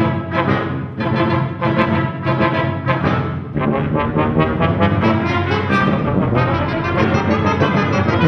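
Brass playing contemporary chamber music: a trombone in short repeated notes, then a deep low note comes in about three and a half seconds in, most likely a tuba, with a denser sustained sound from there on.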